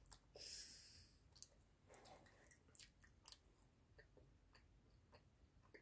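Faint chewing of a hard piece of food, with small irregular crunching clicks.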